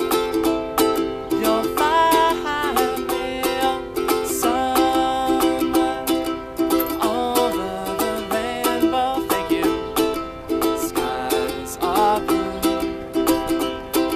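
Ukulele strummed quickly in a steady rhythm, chords ringing under the strokes, with a voice singing along at times.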